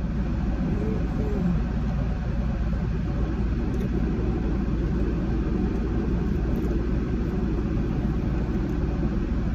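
Car air conditioning blowing on a high setting inside the cabin: a loud, steady rush of air over a low hum from the idling engine.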